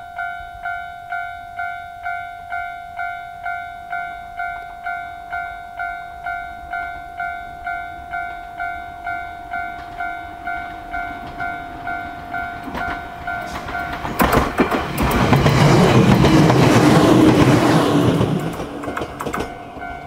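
Japanese level-crossing warning bell ringing a little over twice a second. About 14 s in, a Jōmō Electric Railway 700-series train (set 717F) passes over the crossing for about five seconds, its wheels clattering over the rail joints.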